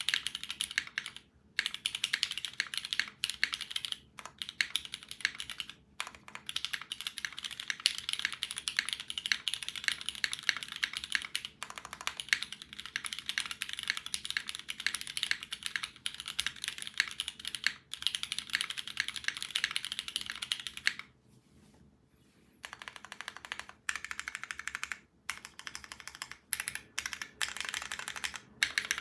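Fast, steady typing on a custom mechanical keyboard with Krytox 205g0-lubed Cherry MX Red linear switches, an aluminium plate and GMK keycaps, a crisp run of key strokes. It pauses briefly a few times and stops for about a second and a half a little past the middle.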